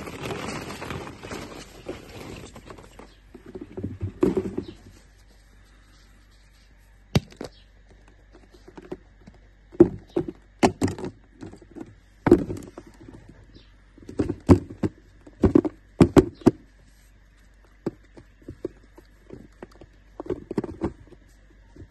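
Hollow plastic ball-pit balls clattering and rustling as a hand rummages through them, dense for about the first three seconds. Then come scattered sharp plastic clicks and soft knocks as a plastic toy egg packed with kinetic sand is handled and opened.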